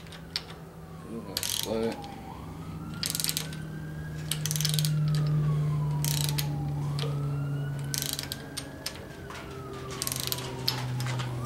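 Socket ratchet clicking in short bursts as a rocker arm nut is turned down to take up pushrod slack. Under it a siren wails, sliding up and down about every four to five seconds, over a steady low drone of road traffic.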